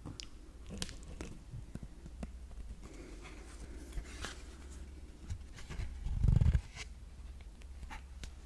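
A small cardboard board book handled close to the microphone: fingers tapping and scratching on the stiff glossy pages, a soft rustle as a thick page is turned, and scattered sharp clicks. A dull low thump about two-thirds of the way through is the loudest sound.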